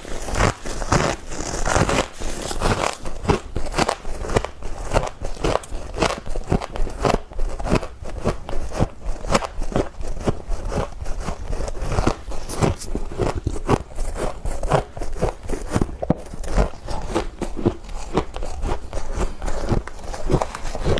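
Freezer frost being bitten and chewed close to the microphone: a quick, uneven run of crisp crunches.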